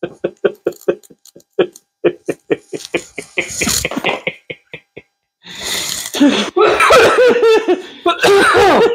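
Laughter: a run of short, evenly spaced laughs, then after a brief pause, louder and longer laughing through the last few seconds.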